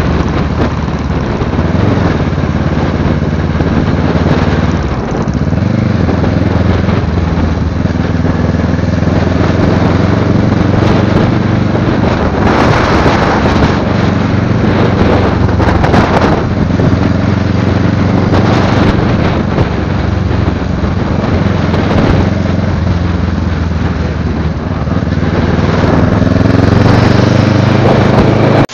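Sport motorcycle engine and exhaust running under way, heard from the rider's seat, its pitch dropping about five seconds in and again near the end before climbing as the throttle is rolled back on, over a steady rush of wind and road noise.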